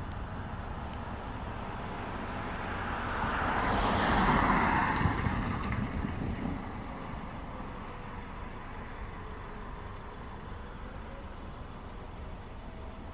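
A car driving past, its tyre and engine noise swelling to a peak about four to five seconds in and then fading away.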